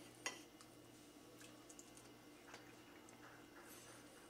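Metal fork and knife clinking on a ceramic plate while cutting through a stack of soufflé pancakes: one sharp clink about a quarter second in, then a few faint ticks, over quiet room tone.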